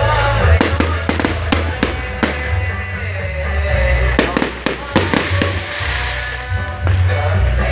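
Fireworks going off in quick strings of sharp bangs, with music playing underneath with a heavy bass.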